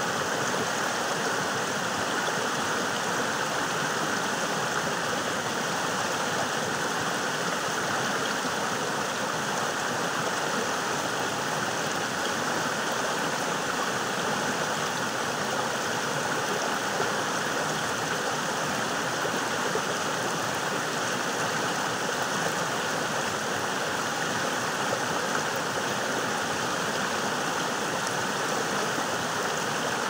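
Rocky stream flowing fast over and around boulders: a steady, unbroken rush and splash of water.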